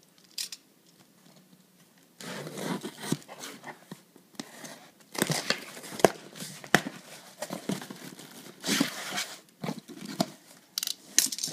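Cardboard shipping box being opened by hand: packing tape cut and torn off, and cardboard flaps rustling and scraping in bursts with sharp clicks, starting about two seconds in.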